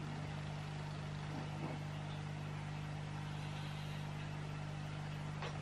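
A steady low hum throughout, with a couple of faint small clicks, about a second and a half in and near the end.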